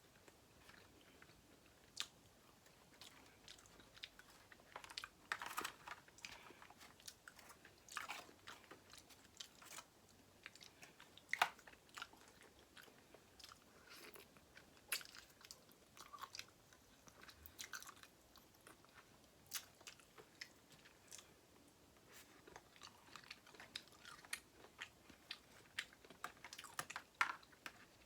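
A person chewing and biting seafood boil close to the microphone: soft scattered clicks and crunches, a second or two apart, faint in between.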